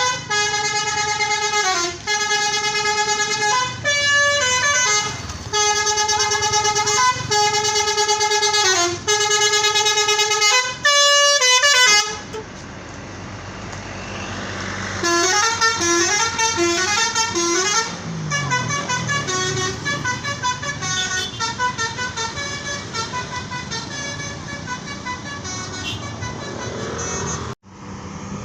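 Tour bus 'telolet' multi-tone musical horns playing tunes. First come long held chords that step up and down in pitch. After about 12 s there are a few seconds of street noise, then another horn plays a quicker tune from about 15 s until it cuts off suddenly near the end.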